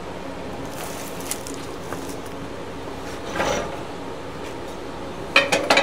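Steady background hiss with light handling sounds. Near the end comes a quick run of sharp metallic clanks as a cast-iron pulley is set down on the cement mixer's sheet-steel motor-mount plate.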